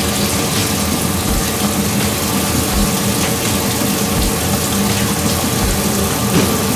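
Steady running machinery: a constant hiss over a low hum, with a soft low thump repeating about every one and a half seconds.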